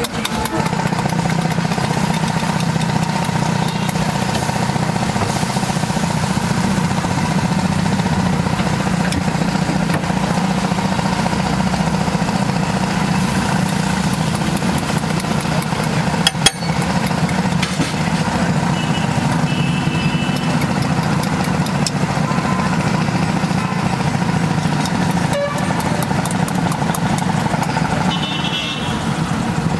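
Gravy sizzling and bubbling on a large iron tawa as a wooden spatula stirs it, under a steady low engine-like drone. A single sharp knock comes about sixteen seconds in.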